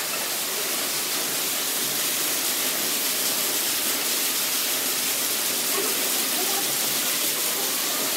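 Underground cave waterfall pouring steadily: a dense, even rush of falling water and spray.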